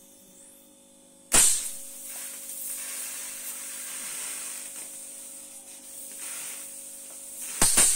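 High-voltage DC brush (corona) discharge at about 100 kV, starting suddenly about a second in and then hissing steadily. Near the end it jumps to a much louder, rougher crackle as the discharge breaks into sparks.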